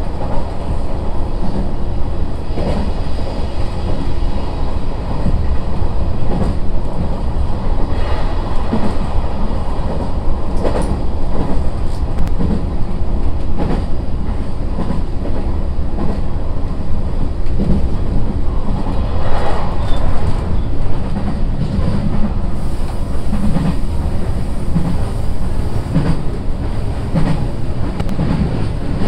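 Running noise inside a Sendai Airport Railway SAT721 series electric train: a steady rumble of wheels on rail, broken by repeated clacks as the wheels pass over rail joints.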